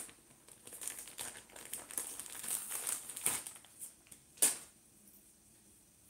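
Clear plastic packaging bag crinkling in the hands as a scarf is unpacked from it, in irregular crackles, with the loudest sharp crackle about four and a half seconds in.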